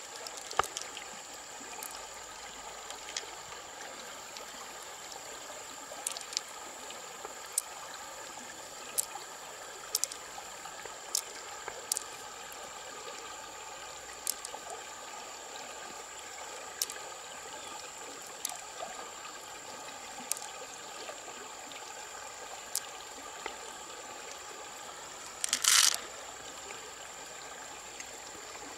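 Shallow river trickling steadily, with scattered sharp clicks as pearls and mussel shell are handled, and one brief louder burst of noise near the end.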